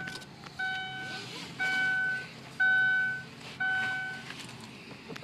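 Vehicle reversing alarm beeping once a second, each beep a steady electronic tone; it stops about four seconds in.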